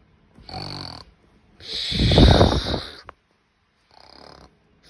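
Snoring: three snoring breaths, the middle one long and loudest, the last one faint.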